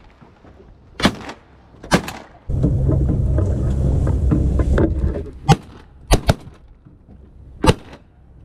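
Shotgun fire from a waterfowl hunt: about six sharp reports over several seconds, two of them close together a little after six seconds. Between the second and third shots, a loud rush of wind noise on the microphone lasts about two seconds.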